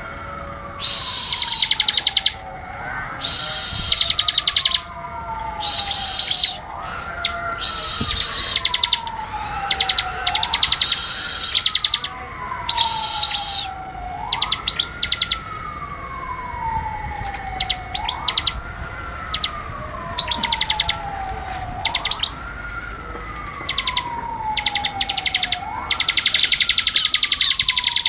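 Ciblek (prinia) singing in bursts of rapid, high-pitched chirps, each about a second long and coming every couple of seconds. Under it runs a fainter falling whistle-like tone that repeats about every two and a half seconds.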